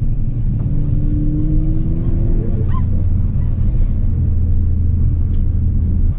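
Ford Focus ST's turbocharged four-cylinder engine and exhaust droning steadily while driving, heard from inside the cabin. A brief higher sound sweeps upward about two and a half seconds in, after which the engine note settles lower.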